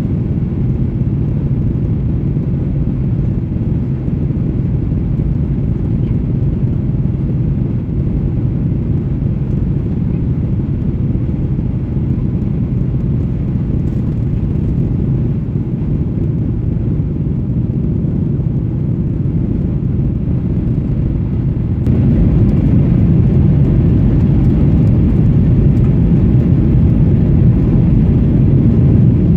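Cabin noise in a Boeing 737 on final approach with flaps fully extended: a steady low rumble of engines and airflow over the wing. It turns louder and fuller about 22 seconds in.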